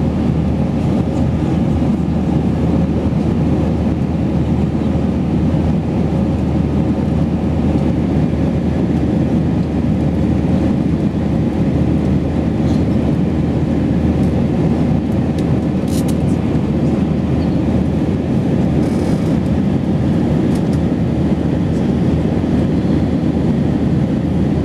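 Steady cabin noise of a twin-engine jet airliner climbing after takeoff: an even drone of engines and rushing air heard from inside the cabin, with a faint steady hum over it.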